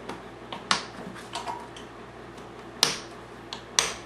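Plastic air cleaner cover of a Honda 3000 generator being pressed and clipped into place: a few sharp clicks and snaps, three of them loud, as its clips engage.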